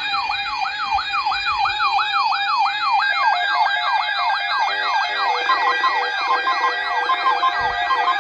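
Electronic alert siren yelping, its pitch sweeping up and down about three times a second over a steady tone; a pulsing lower beep joins about halfway through.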